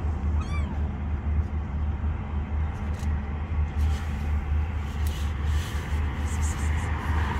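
One short kitten meow about half a second in, rising and falling, over a steady low rumble.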